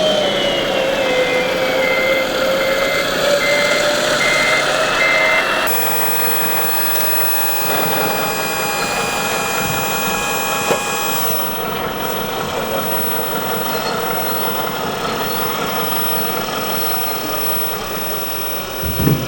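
Radio-controlled model construction machines working: a reversing beeper sounds repeatedly for the first few seconds over a motor whine that drops in pitch and then climbs again. About six seconds in the sound changes abruptly to a steadier whine, which fades out around eleven seconds.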